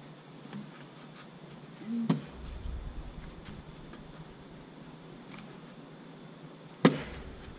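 Steady high insect drone, cricket-like, with two sharp knocks: one about two seconds in and a louder one near the end.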